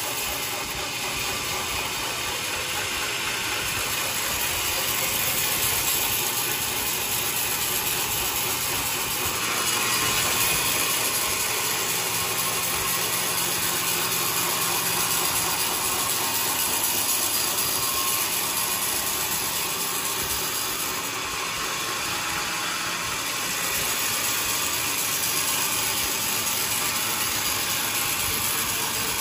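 Sawmill machinery running with a steady, dense mechanical noise that swells slightly now and then.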